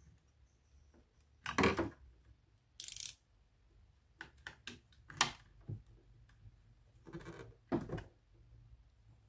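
Hands working on a scooter's plastic speedometer housing and its parts: scattered clicks, knocks and scrapes at an uneven pace, with a short hiss about three seconds in.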